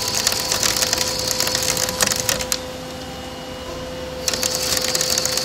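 CNC lathe turning a workpiece under flood coolant: the insert cuts with a crackling, hissing chip sound over the machine's steady whine. The cutting noise stops for a second and a half in the middle, then resumes.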